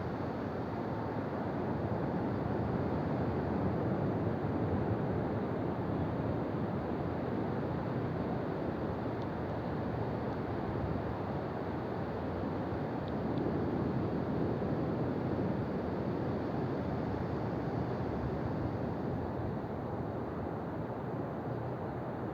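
Ocean surf washing onto a beach: a steady rushing noise that swells gently a few seconds in and again around the middle.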